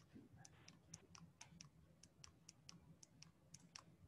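Faint, rapid clicking, about five short sharp clicks a second, over quiet room tone.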